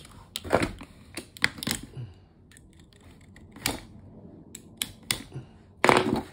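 A boxed set of steel groove joint pliers being unpacked by hand: irregular clicks and clacks, loudest near the end.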